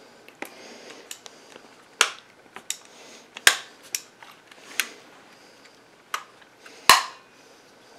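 Sharp clicks and snaps of a Krytac airsoft rifle's parts being opened and worked by hand, about eight in all, the loudest about three and a half seconds in and again near the end.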